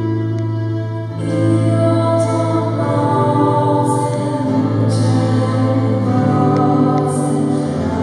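Live worship song: a woman sings a slow melody over sustained keyboard chords and acoustic guitar, her voice coming in about a second in.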